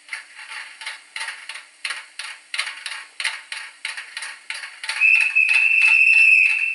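HO-scale Renault VH railcar model's DCC sound decoder playing through its small onboard speaker: a rhythmic clatter of about three beats a second, then a single steady horn tone about five seconds in, held for about two seconds.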